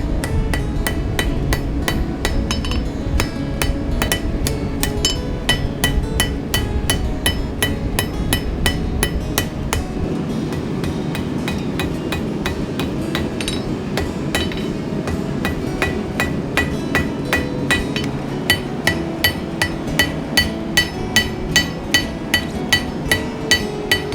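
Blacksmith's hand hammer striking steel on an anvil in steady blows, about two a second, each with a bright ring, forging the spoon bit of a bow drill.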